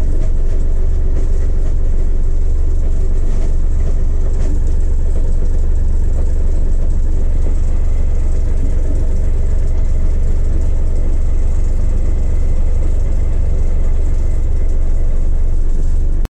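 1983 Mack cabover semi's diesel engine idling steadily, heard from inside the cab, with a strong low rumble; the sound cuts off suddenly near the end.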